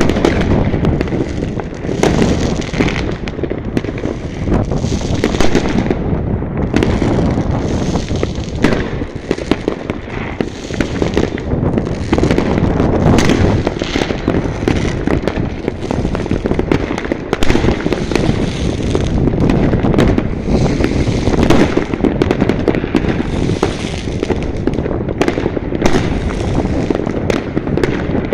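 New Year's fireworks going off all around: a continuous barrage of bangs and crackles from many launches at once, with no pause.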